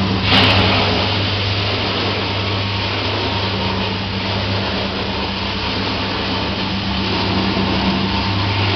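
Hobart Ecomax CHH 50 commercial dishwasher running a wash cycle: a steady pump hum with water hissing and spraying inside the cabinet. It starts suddenly and cuts off at the end.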